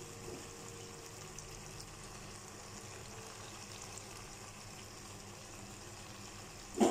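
Faint, steady simmering of a thick vegetable curry in a nonstick wok, a low even hiss with light ticks. A sharp knock comes right at the end.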